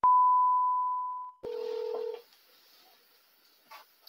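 Television colour-bars test-tone sound effect: one high, steady beep lasting about a second and a half and slowly fading, followed by a shorter, lower beep. After that there is near silence.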